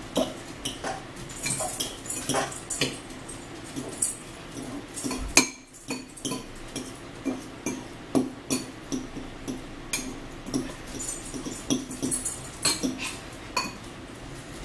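Close-up eating sounds: chewing and mouth sounds in short irregular bursts, with forks and spoons clicking against bowls. There is a louder knock about five seconds in.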